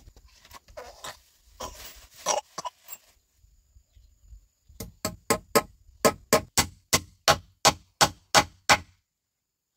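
Claw hammer driving nails into rough wooden planks: a few scattered knocks of boards, then a steady run of about a dozen sharp blows, roughly three a second.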